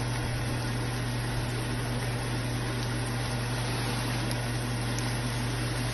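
Steady hiss of saltfish, onions, tomatoes and peppers sautéing in oil in a pan, over a constant low hum.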